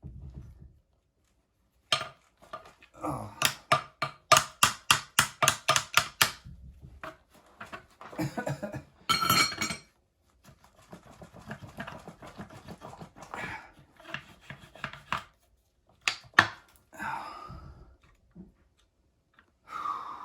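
Hand tools working a stuck water pump on an engine block. There is a quick run of sharp metal taps, about four a second, followed by scraping, clinks and clatter of tools against the pump and block.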